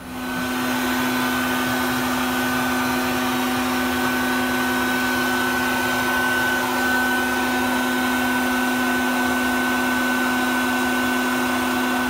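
Bee vacuum running steadily with an even motor hum and whine as its hose sucks bees off the ceiling joists. It comes up to speed in the first half second.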